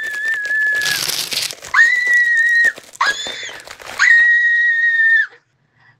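A young man shrieking at a high, whistle-like pitch. There are four shrieks of about a second each; each scoops up at the start and then holds one steady note. The first, already under way, breaks into a harsh rasp about a second in.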